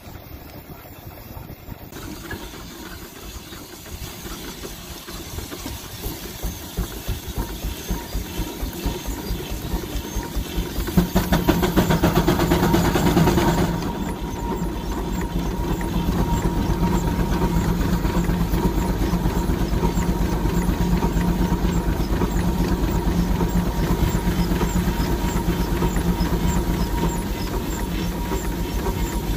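1916 Case 80 HP steam traction engine running in under the light load of a belt-driven Baker fan, everything freshly rebuilt. Its exhaust beat quickens over the first ten seconds as it comes up to speed, then goes on as a fast steady chuffing with hiss; a louder rush lasts about three seconds near the middle.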